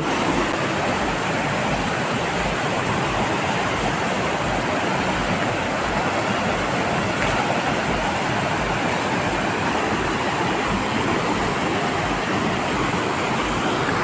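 Fast, swollen mountain river rushing over boulders in whitewater rapids: a steady, unbroken rush of water.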